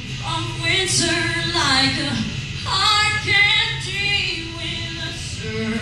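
Two female voices singing a duet through microphones, with strummed acoustic guitar accompaniment.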